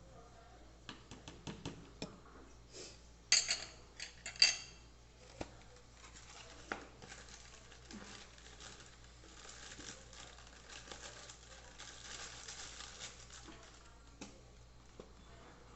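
Kitchen utensils and dishes being handled: scattered light clinks, then two loud ringing clinks of metal or glass on a dish about three and a half and four and a half seconds in, followed by several seconds of soft continuous handling noise.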